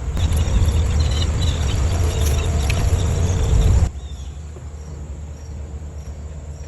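Crickets chirping steadily in the background, under a loud low rumble and rustle that cuts off sharply about four seconds in.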